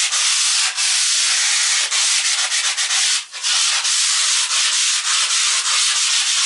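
Power sander running on a hardened earthen floor: a steady, loud hiss of abrasive on the earth surface, with a brief dip about three seconds in.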